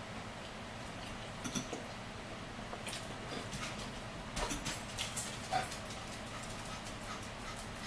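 Forks tapping and scraping on plates as two people eat: a few light clicks, most of them bunched together about halfway through, over a faint steady hum.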